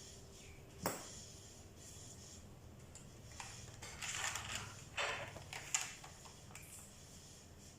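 Small screws being driven into a toy RC truck's plastic battery cover with a screwdriver: a sharp click about a second in, then several short scraping rasps.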